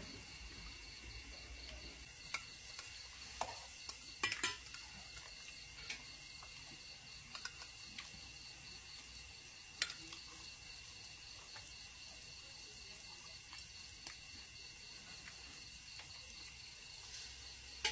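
Scattered clicks and taps of chopsticks and tongs against bowls and metal pans at a tabletop moo kratha grill-hotpot, the loudest cluster about four seconds in, over a faint sizzle of pork on the grill. A steady high insect trill runs underneath.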